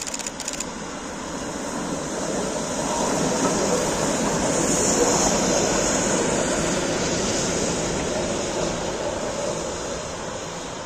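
Two Soviet P36 steam locomotives running coupled without a train, passing by: a rushing rumble that grows louder to a peak about halfway through and then fades away.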